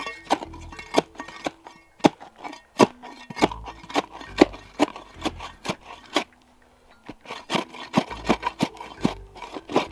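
Repeated short scraping strikes of a digging tool chipping into earth while a tunnel is dug little by little, irregular at about two or three a second with a brief pause past the middle, over background music.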